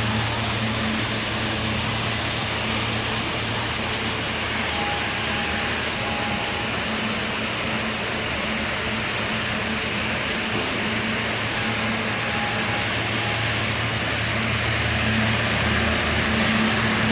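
Industrial machinery of an aluminium can decoating line running steadily: an even roar with a low hum underneath and a faint high tone that comes and goes.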